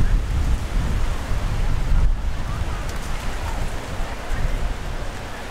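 Wind buffeting the microphone in gusts, easing toward the end, over a steady hiss of surf.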